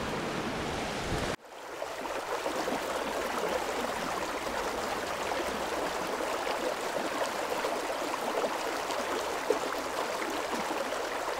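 River water running steadily over stones, with a sudden break about a second and a half in before the flow continues.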